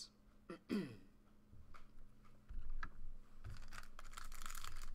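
A couple of dull thumps of handling on the table, then the foil wrapper of a trading card pack crinkling and tearing as hands pick it up and open it, starting a little before the end.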